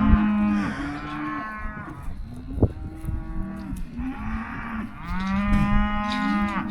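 Freshly weaned calves bawling: several long, drawn-out moos from more than one animal, some overlapping. The calves are calling for their mothers after being separated from them.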